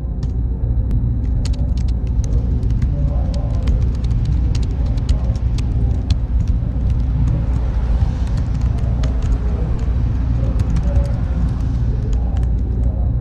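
Server room ambience: a steady low hum of cooling fans and machinery, with scattered sharp clicks throughout.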